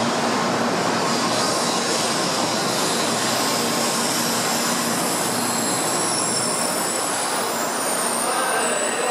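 N700-series Shinkansen train (Sakura, 7000/8000 series) moving slowly alongside the platform with a steady rushing rumble. Thin, high-pitched squeals come in over the last few seconds.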